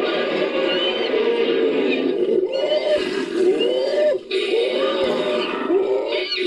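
Designed creature vocalization for an Appalachian Devil Monkey, layered from ape, monkey and monster sounds. It is a dense run of pitched calls that rise and fall, several in a row, with a short break a little past four seconds in.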